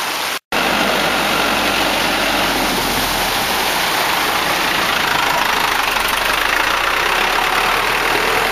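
Light truck's engine running as it drives through floodwater, with the steady rushing and splashing of water churned up by its wheels. A brief dropout of silence about half a second in.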